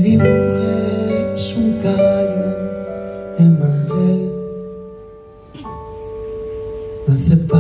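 Slow pop ballad played live: a male voice singing over held electric keyboard chords. The music thins to a soft moment about five seconds in, then swells again.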